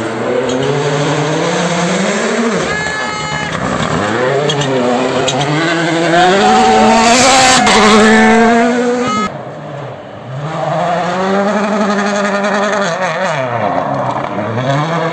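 Rally car's turbocharged four-cylinder engine revving hard, the pitch climbing and dropping repeatedly through gear changes as the car approaches and passes close, loudest as it goes by. The sound cuts off suddenly about nine seconds in, followed by a rally car's engine further off, again rising and falling through the gears as it comes nearer.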